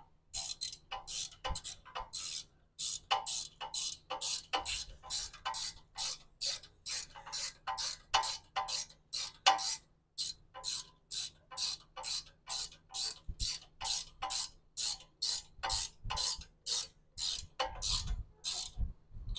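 Hand socket ratchet tightening long bolts, clicking in short even strokes at about two a second throughout.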